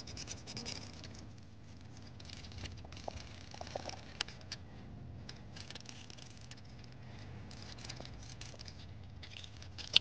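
Sandpaper rubbed by hand over the small plastic brush-holder cover of a DC toy motor: faint, irregular scratching with scattered small clicks.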